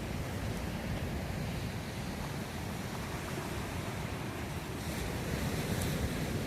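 Atlantic Ocean surf breaking and washing on a beach, a steady rush of waves with wind on the microphone adding a low rumble. A wave surges louder about five seconds in.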